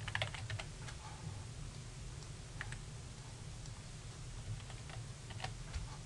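Typing on a computer keyboard, with mouse clicks: a quick run of keystrokes at the start, then scattered single clicks, over a low steady hum.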